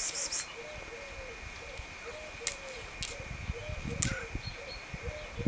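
Faint cooing calls, like a dove's or pigeon's, repeated evenly about twice a second, with a few sharp clicks.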